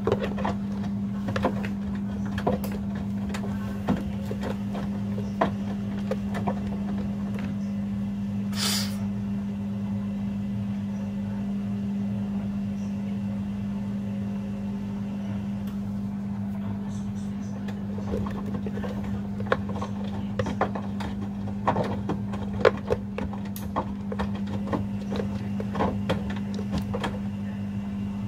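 Front-loading washing machines running a wash cycle: a steady low hum with scattered clicks and knocks from the drum, and a brief hiss about nine seconds in.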